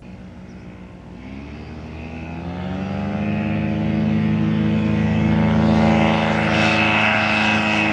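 Quicksilver ultralight's Hirth F23 50 hp opposed two-stroke engine and propeller at full takeoff power. The engine note rises in pitch over the first few seconds, then holds steady while growing steadily louder as the aircraft rolls, lifts off and comes closer.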